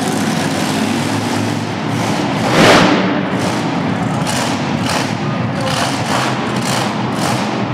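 Loud arena din: music over the PA mixed with engine noise, with one heavy thud about two and a half seconds in and a steady beat in the second half.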